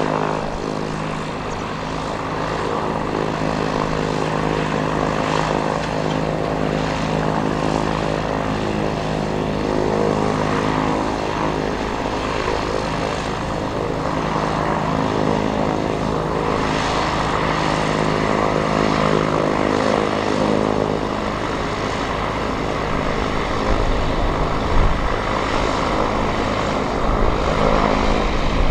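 Cessna T206H Turbo Stationair's turbocharged six-cylinder engine and propeller running steadily at low taxi power.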